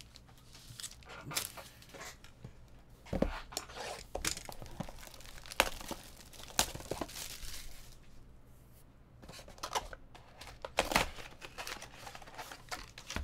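Trading-card pack wrappers being torn open and crinkled, with a run of irregular sharp rips and rustles.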